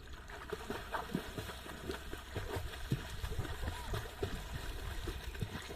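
Water splashing and sloshing from children swimming in a natural pond, a run of short irregular splashes over a steady low hum.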